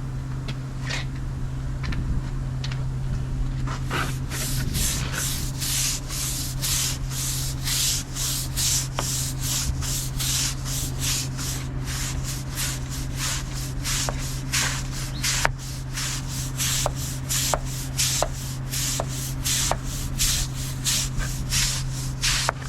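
Stiff brush scrubbing acid-washed brick in rapid back-and-forth strokes, starting about four seconds in, over a steady low hum.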